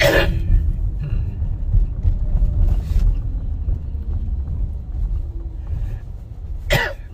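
Steady low road and engine rumble inside a moving car's cabin. Short hissing noise bursts come right at the start and again, loudest, near the end.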